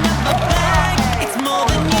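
Background music with a steady beat: a rock song with bass, drums and guitar.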